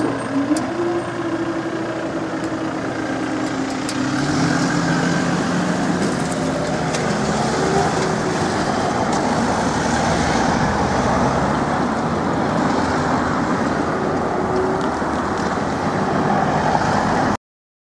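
Electric train passing over the level crossing: a pitched motor whine for the first few seconds, then a louder steady rumble of wheels on the rails from about four seconds in, which cuts off suddenly near the end.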